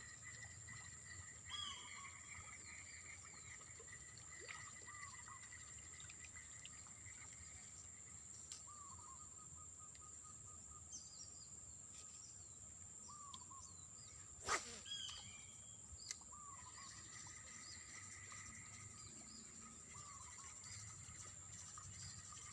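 Faint outdoor riverside ambience: a bird calling a short repeated note every couple of seconds over a steady high-pitched drone. A single sharp click about two-thirds of the way through is followed by a few softer ones.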